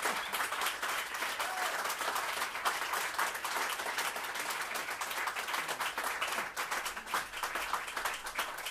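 Audience applauding, a dense steady patter of many hands clapping that eases slightly toward the end.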